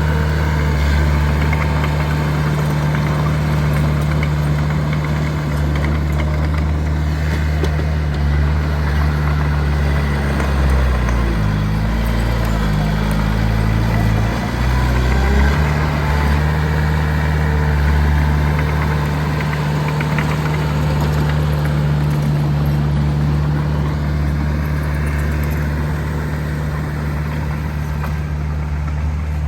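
Heavy diesel engine of an earthmoving machine running steadily, its pitch dropping for a few seconds near the middle, then returning.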